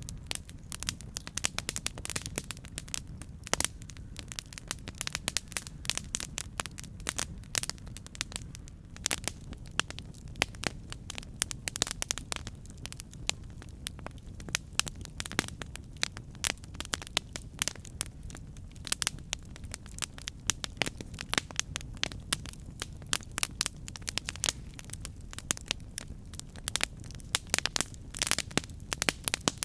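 Campfire burning with dense, irregular crackles and pops over a steady low rumble of the flames.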